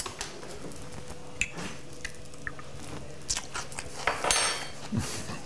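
A few sharp clinks of metal cutlery, the last one ringing briefly near the end, with quiet chewing as a spoonful of crab salad is tasted.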